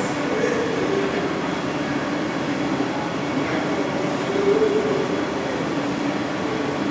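Steady rushing noise of a glassblowing hot shop's gas-fired glory holes, bench torches and ventilation fans running.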